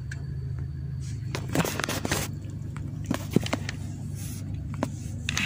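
Steady low hum of a car idling, heard inside the cabin, with scattered clicks, scrapes and rustles from the phone being handled.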